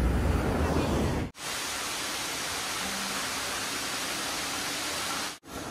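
Evening street traffic, cars passing through an intersection with a low rumble, which cuts off abruptly about a second in. It is followed by a steady, even rushing hiss with no voices standing out, which stops abruptly near the end.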